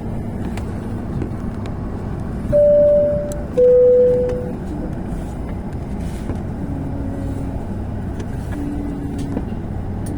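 Steady low rumble of an airliner cabin with a loud two-note chime about 2.5 s in, a high note then a lower one, each close to a second long.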